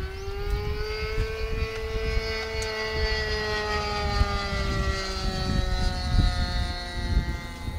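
A radio-controlled model aircraft's engine whining steadily, rising slightly in pitch, then falling away and fading about six seconds in. Wind rumbles on the microphone.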